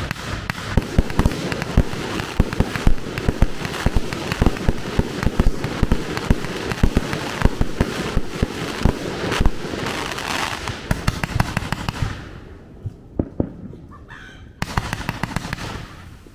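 A fireworks finale: a dense, rapid barrage of launches and bursting cracks and pops that thins out to scattered pops about twelve seconds in, with one more short flurry near the end.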